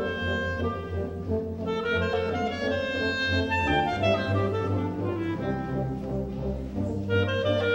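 Solo clarinet playing over a wind ensemble accompaniment, the band holding sustained chords and bass notes beneath the clarinet line.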